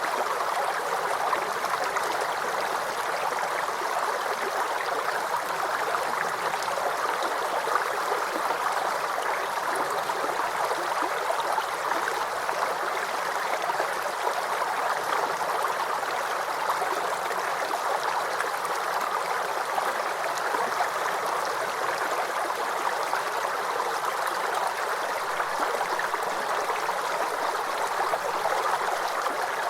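Babbling brook: water gurgling and trickling over stones in a steady, unbroken flow.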